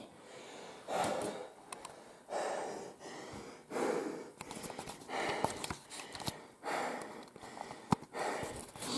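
A man breathing heavily and audibly close to the microphone, a breath about every second and a half, with one sharp click near the end.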